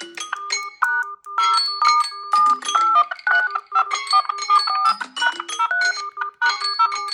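Samsung Galaxy phone alert tones playing: quick electronic melodies of short, repeated notes, several patterns overlapping at once.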